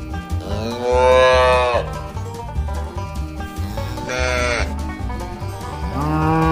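Cattle mooing three times: a long moo about half a second in, a shorter, higher one around four seconds in, and another starting near the end. Background music with a steady bass beat plays underneath.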